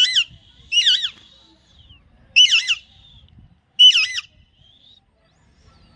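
Young Alexandrine parakeet giving four harsh squawks, each with a wavering pitch, spaced a second or so apart.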